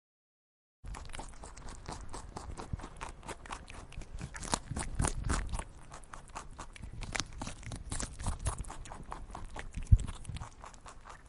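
Crunching and clicking from a farm animal, starting about a second in after a moment of silence, with one sharp knock near the end.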